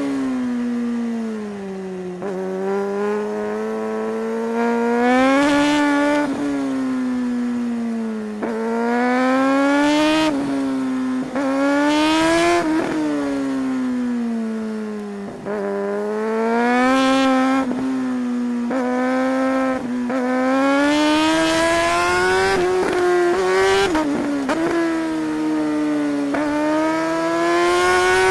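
Suzuki GSR 600 inline-four motorcycle engine under hard riding, its revs climbing and falling again and again. The short breaks come at the gear changes.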